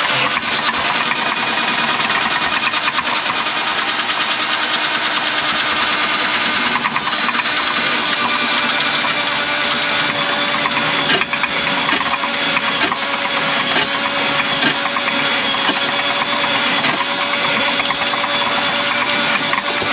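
Powered drain auger running steadily: a motor hum under dense rattling of the spinning cable as it works through a kitchen sink drain line clogged with grease.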